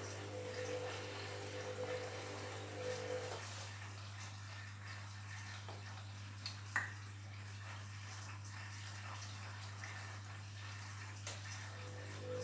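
Washing machine mid-cycle: water sloshing and trickling in the drum over a steady low hum. A pitched whine stops about three seconds in and comes back near the end, and there are two light clicks in between.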